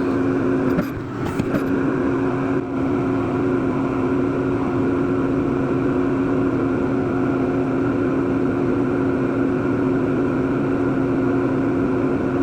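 Okuma CNC lathe running with its door closed, spindle turning and coolant spraying as it machines a 416 stainless steel shifter knob. A steady hum with two steady tones over a wash of hiss, dipping briefly about a second in and again near three seconds.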